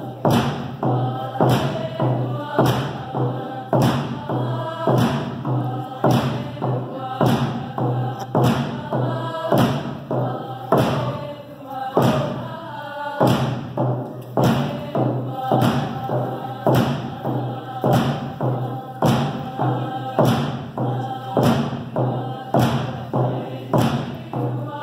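Tlingit dance song: a group of voices singing together over a steady drumbeat of about two beats a second.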